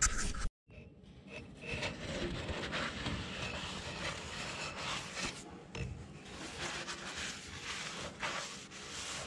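A rag rubbing and scraping around the inside of a bare cylinder bore in a Hercules engine block as it is wiped out, a steady, uneven rubbing with repeated strokes.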